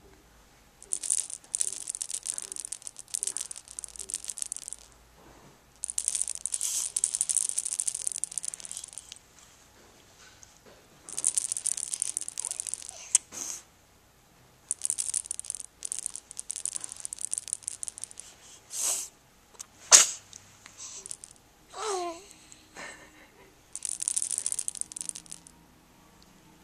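A hand-shaken rattle, shaken in repeated spells of a few seconds each with short pauses between. About twenty seconds in there is a single sharp, loud burst, and soon after a short sound falling in pitch.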